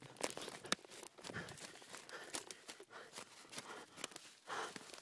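Hurried footsteps crunching and rustling through dry fallen leaves and twigs on a forest floor, irregular crackles and thuds as someone moves fast with the camera.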